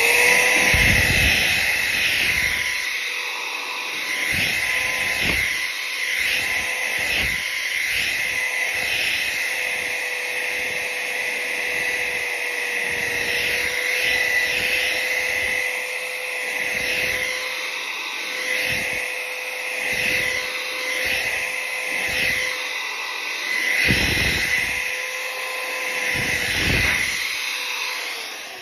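Corded electric drill fitted with a polishing brush, running steadily at speed as it polishes metal: a constant whine with uneven low bumps throughout. It starts at once and winds down near the end.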